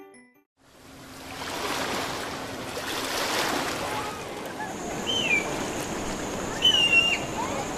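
Outdoor sea ambience of surf and wind noise, rising in about half a second after a brief silence, with a few short high-pitched calls about five and seven seconds in.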